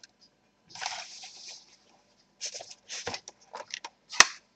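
Hands working on a laptop's plastic case and parts: a short scraping rustle about a second in, then a run of small clicks and taps, with one sharp click near the end.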